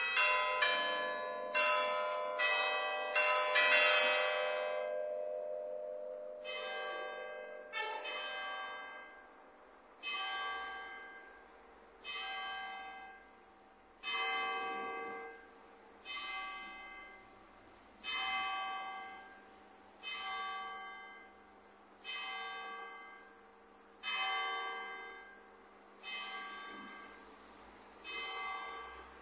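Five-bell church tower rung by electromechanical strikers. The last quick notes of a bell melody sound in the first four seconds and then die away. Then one bell strikes the hour twelve times for noon, about one stroke every two seconds, each stroke ringing on and fading.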